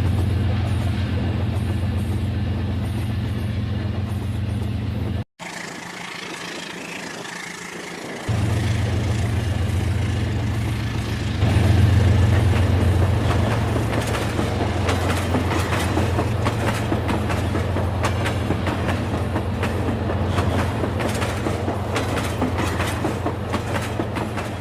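Rail King toy train running on its track: a steady motor hum with rapid clicking of the wheels over the track. About five seconds in the sound cuts off abruptly and stays quieter for about three seconds, then the running returns at full level.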